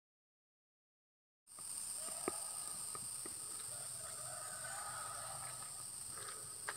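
Silence for about a second and a half, then outdoor ambience: a steady high-pitched insect drone with faint wavering animal calls and a few small clicks.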